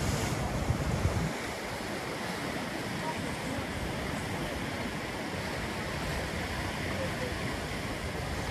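Ocean surf breaking around offshore rocks and washing into foam along a rocky shore: a steady rushing wash, with a heavier low rumble in the first second or so that then eases to an even level.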